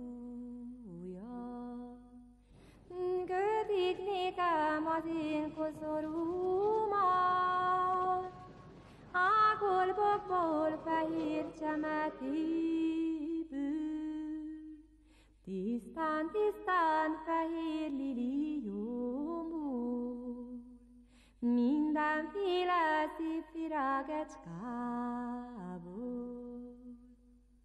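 Congregation singing a slow unaccompanied hymn, in melodic phrases of several seconds each with short pauses between.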